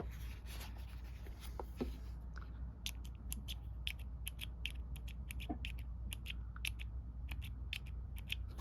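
Light, sharp clicks and ticks of a titanium pen being handled, an irregular string of a few clicks a second starting about two and a half seconds in, over a faint steady low hum.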